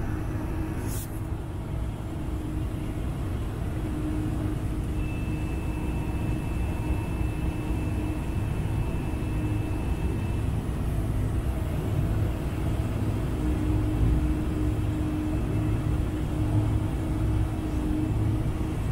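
Cabin noise inside a Boeing 747-400 taxiing, with its GE CF6 engines at taxi power: a steady low rumble and hum. A thin, steady high tone joins it for about five seconds midway.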